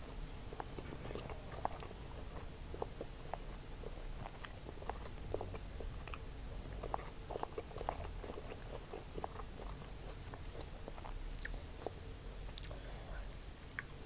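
Close-miked eating sounds: a mouthful of fried rice being chewed, with irregular wet mouth clicks, and fingers squishing and mixing the rice on the plate.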